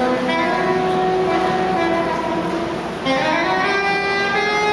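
A busker's solo melodic instrument playing slow, held notes, sliding smoothly up in pitch about three seconds in.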